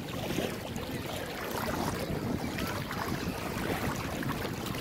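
Wind buffeting the microphone over shallow sea water lapping and sloshing, with faint distant voices of bathers.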